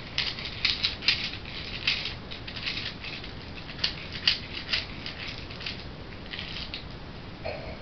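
A string of short, irregular rattles and scrapes from a small plastic toy being waved and handled.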